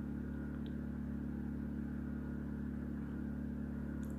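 Steady low hum, even and unchanging, with a couple of very faint ticks.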